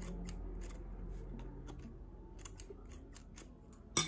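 Texturizing scissors snipping repeatedly at the end of a box braid to trim it, about three quick cuts a second, with one louder click near the end.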